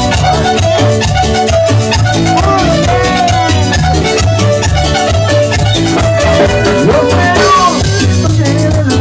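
Loud Latin dance music from a band with keyboard, over a steady repeating bass beat.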